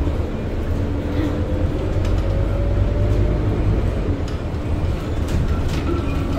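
Scania K230UB single-deck city bus under way, heard from inside the passenger cabin: a steady low rumble of its five-cylinder diesel engine and road noise, with a faint whine that rises slightly in pitch over the first few seconds and a few light rattles.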